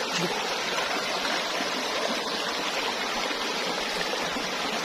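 Shallow river water rushing steadily over rocks in a riffle.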